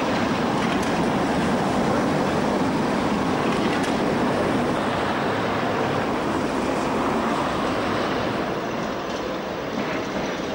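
Tatra trams, a T3 pair and then an articulated KT8D5, rolling along street track: a steady rumble of wheels on rails and running gear, with a couple of sharp clicks in the first few seconds.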